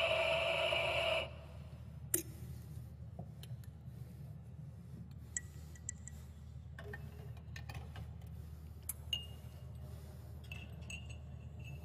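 Espresso machine steam wand hissing with a steady squeal as milk is steamed, cutting off about a second in. After that comes a low hum with scattered light clinks and knocks of ceramic cups and saucers.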